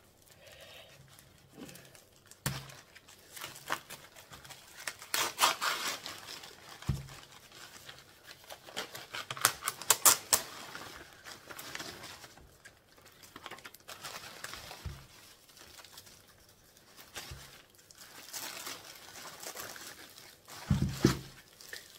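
Plastic packaging being handled and torn open: crinkling and rustling in irregular bursts, loudest about five and ten seconds in, with a few short dull knocks.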